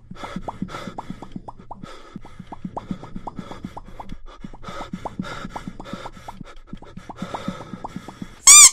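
The pop cat meme's mouth-pop sound effect repeated rapidly, about five pops a second, in runs of roughly two seconds with short breaks between. Near the end a brief, loud, high squeal cuts in and stops.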